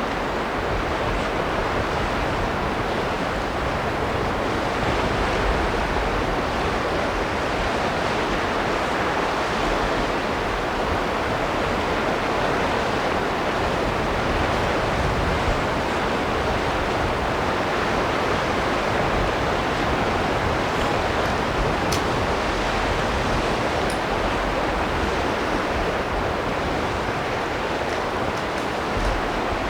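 Steady rushing noise at an even level, with a faint sharp click or two about two-thirds of the way through.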